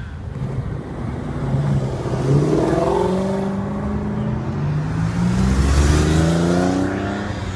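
A supercar engine accelerating hard, revs climbing, then dropping at an upshift about four and a half seconds in and climbing again.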